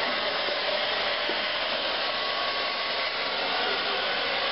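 Handheld hair dryer running steadily, a continuous blowing hiss with a faint motor whine, as it is aimed down the hair while a round brush pulls the section through.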